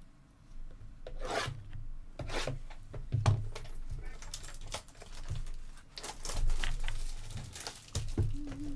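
2018-19 Panini Revolution Hobby basketball card packs being torn open by hand, with the foil wrappers rustling and the cards rubbing and sliding against each other in an irregular run of scrapes and rips.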